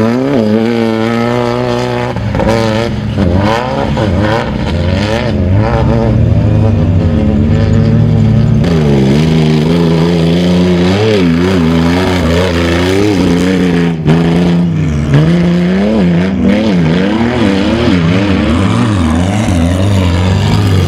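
Off-road race buggy and truck engines revving up and down again and again under hard driving, with a steadier low engine note underneath.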